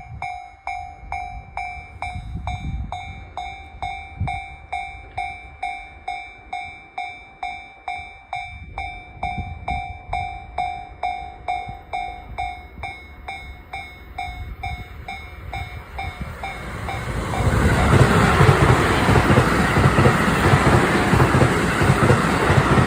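Japanese level-crossing warning bell ringing a steady electronic ding about twice a second. About two-thirds of the way in, a JR rapid-service electric train passes at speed, its wheels clattering in a steady rhythm and drowning out the bell.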